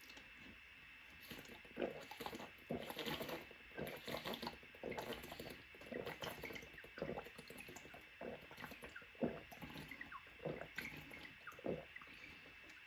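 A person drinking water in gulps, close to the microphone: a string of short, wet swallowing sounds about every half second to a second.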